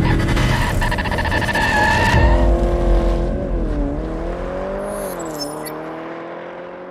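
Car sound effects, an engine revving with tyres squealing, over intro music. The sound dips and rises in pitch twice and grows steadily quieter toward the end.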